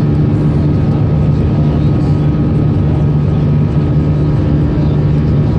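Airbus A320 jet engines and rushing air heard from inside the cabin during the climb after takeoff: a steady, loud drone with a low hum and a thin, steady whine above it.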